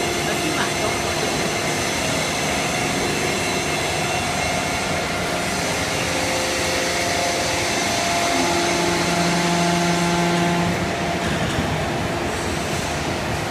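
Paper baling machine running: a steady mechanical din with several steady whining tones. About eight seconds in, a lower hum joins and runs for a couple of seconds before dropping away.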